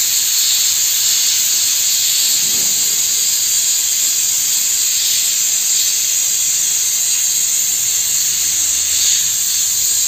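Pressure cooker venting steam in a loud, steady hiss as its whistle weight is held up with a ladle, releasing the built-up pressure after cooking.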